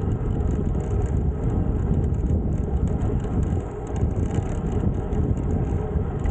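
Steady wind rumble buffeting the microphone of a camera mounted on a road bike ridden at speed.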